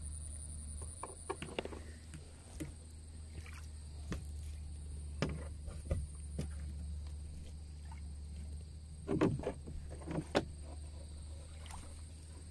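Knocks and bumps of a small boat and its gear in the water, several sharp ones with the two loudest about nine and ten seconds in, over a steady low hum and a thin high whine.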